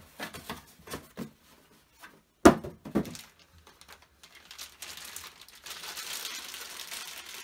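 Unboxing handling of a USB joystick and its packaging: a few light knocks, then a sharp thump about two and a half seconds in with a smaller one just after, followed by a steady rustling of packaging over the last couple of seconds.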